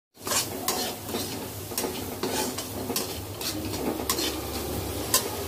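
Metal slotted spoon stirring and scraping vegetables with spices in a metal kadai, with repeated sharp clinks against the pan over a steady sizzle of frying.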